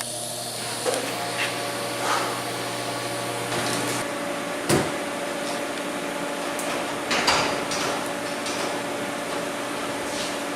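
A steady machine hum runs throughout, with a few sharp knocks and taps as steel cage tubing is adjusted into place; the loudest knocks come just under five seconds in and a little past seven seconds.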